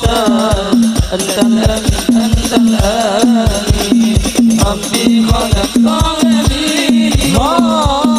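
Live sholawat music: hadrah frame drums beating a fast, steady rhythm of about four strokes a second, with a melody carried over them.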